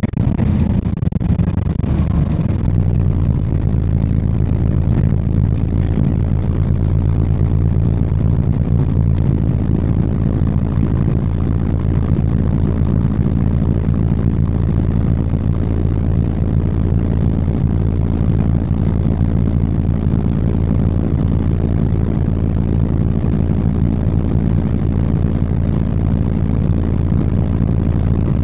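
City bus engine running at a steady pitch, heard from inside the bus while it travels at an even speed, with a few light rattles in the first couple of seconds.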